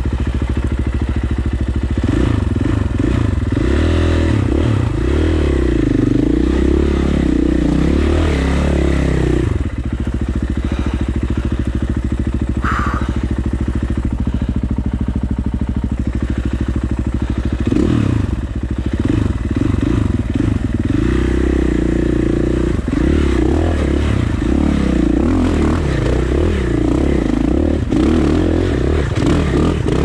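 2019 KTM 450 XC single-cylinder four-stroke dirt bike engine, heard from the rider's helmet, revving up and down with the throttle as the bike climbs a rocky trail, holding a steadier note through the middle.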